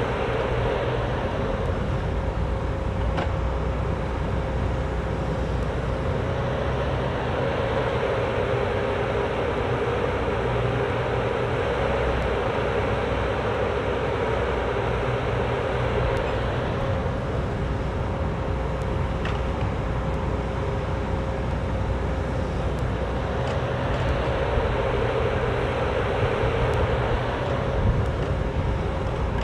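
Cat 304D mini excavator's diesel engine running steadily with a constant whine, the sound swelling for a few seconds at a time as the boom and bucket work.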